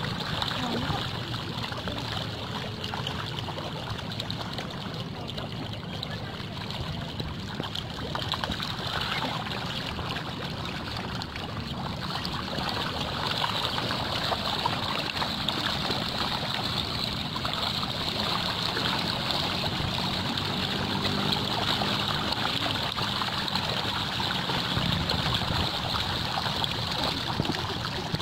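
A dense crowd of catfish churning at the water's surface, giving a steady watery splashing and trickling that swells a little after the middle.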